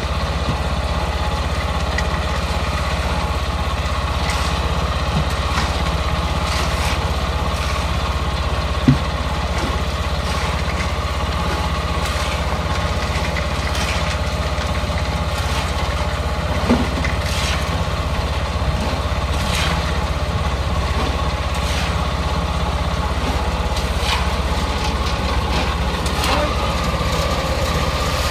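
An engine running steadily at a constant speed, with scattered light clinks and two sharper knocks about nine and seventeen seconds in.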